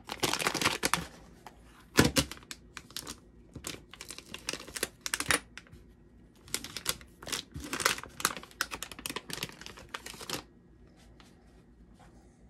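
Crinkly plastic anti-static bag rustling and crackling in irregular bursts as it is opened and a circuit board is pulled out. The crackling stops about ten seconds in.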